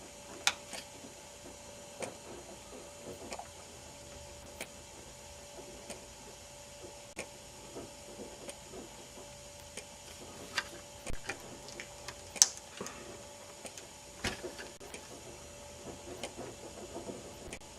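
Faint scattered clicks and taps, the sharpest about half a second in and about twelve seconds in, over a faint steady hum with a high whine.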